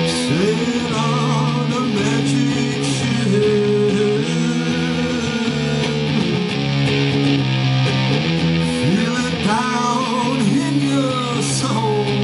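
Rock song played on a Fender Stratocaster electric guitar, with sliding, wavering notes over a steady low backing.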